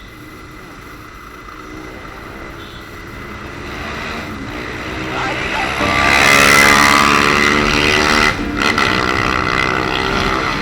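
Single-cylinder motorcycle engine accelerating, growing steadily louder with wind rushing over the microphone, loudest a little past the middle. It breaks off for an instant about eight seconds in, then carries on.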